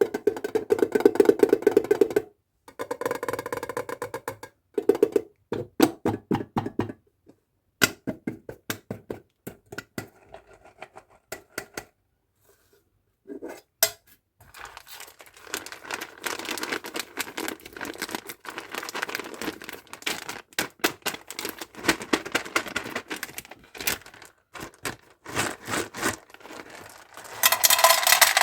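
Candy and toy packaging being handled and opened: many quick clicks, taps and crinkles of plastic, with a louder tearing rustle near the end.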